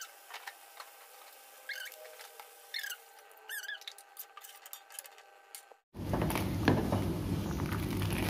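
A few short, high chirps with a gliding pitch, spaced about a second apart. After a sudden cut about six seconds in, a louder steady noise follows: a pot of coconut-milk chicken curry bubbling as it is stirred with a plastic ladle.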